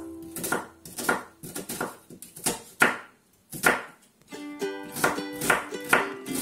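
A chef's knife slicing an onion on a plastic cutting board, each cut a sharp knock on the board, about two a second. Background music plays under it, dropping out for a few seconds in the middle and coming back about four seconds in.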